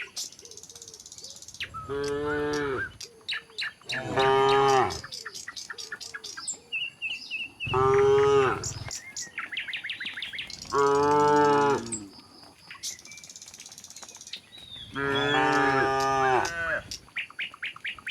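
Cattle mooing, about five long calls a few seconds apart, the herd calling back and forth. Birds chirp in the gaps between the moos.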